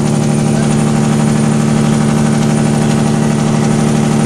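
Semi truck's diesel engine running at a steady pitch at highway speed, heard from inside the cab.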